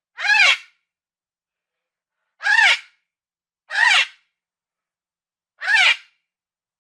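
Parrot squawking: four harsh calls, each about half a second long and rising then falling in pitch, spaced one to two seconds apart.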